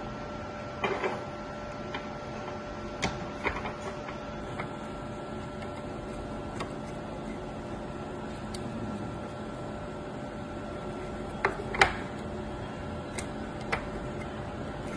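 Scattered light clicks and taps of a circuit board and small parts being handled during a repair, over a steady faint hum. The sharpest tap comes near the end.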